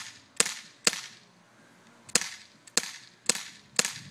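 Colt Defender CO2 BB pistol being fired rapidly, seven sharp pops: three in quick succession, a pause of about a second, then four more about half a second apart.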